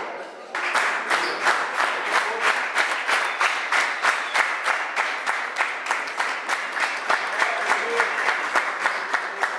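A group clapping together in a steady rhythm, about three to four claps a second, starting about half a second in, with voices mixed in.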